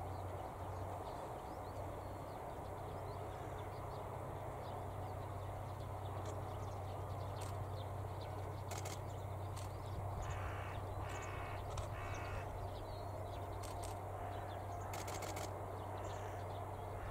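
A crow cawing three times, about ten seconds in, over a steady low hum, with a few brief high chirps here and there.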